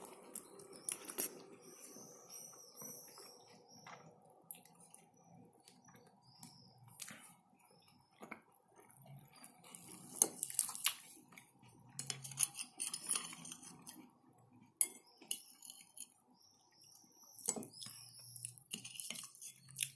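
Metal fork clinking and scraping against a ceramic plate while stuffed bell pepper in sauce is cut and picked up, with scattered soft clicks of close-up eating.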